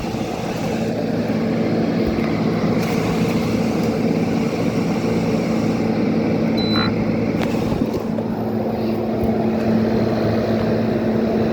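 SPT 12,000 BTU window air conditioner running: a steady rush of air from its fan with a constant low hum. Its control panel beeps once, briefly, about seven seconds in.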